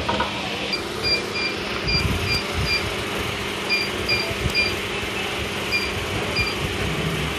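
Plastic injection moulding machine running with a steady hum. Short high beeps sound about ten times over it, mostly in pairs.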